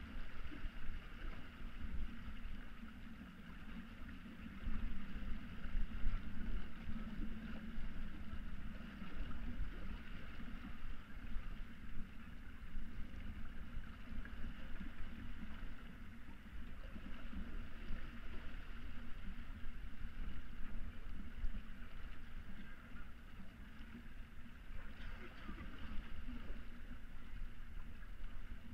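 Water rushing and splashing along the hull of a Hanse 355 sailing yacht moving under sail, with a steady low rumble underneath.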